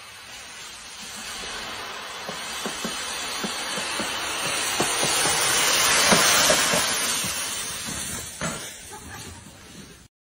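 Mountain bike riding down through dry fallen leaves, a rustling hiss that builds as it passes close by about six seconds in and then fades, with scattered light knocks.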